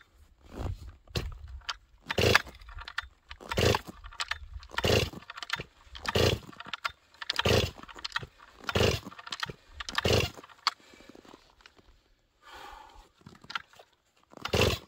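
Cold two-stroke chainsaw being pull-started again and again: about nine quick yanks of the starter rope, roughly one every second and a half, each a short whirr of the engine turning over. It never catches, because the saw is too cold to start.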